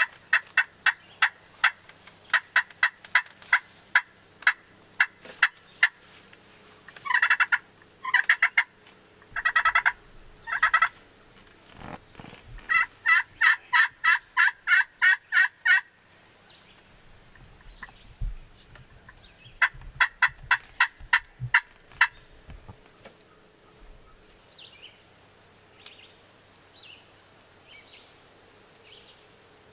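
Turkey calling: long runs of sharp, evenly spaced yelps, about three a second, worked on a hand-held friction call. Four rattling gobbles come about a third of the way in, and a few faint calls follow near the end.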